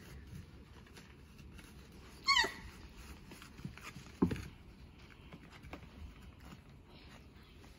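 19-day-old German Shepherd puppies playing. One puppy gives a short, high, wavering squeal about two seconds in, and a shorter, lower yip follows about two seconds later.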